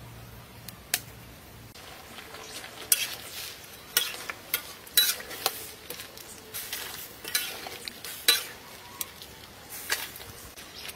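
Lotus root slices sizzling in a hot wok, with many sharp metal clinks and splashes as water is poured in from a metal pot.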